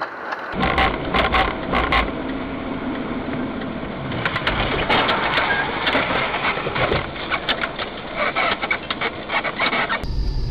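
A car driving, heard through a dash-cam microphone: steady road and engine noise with a series of sharp knocks and crunches. It starts abruptly about half a second in.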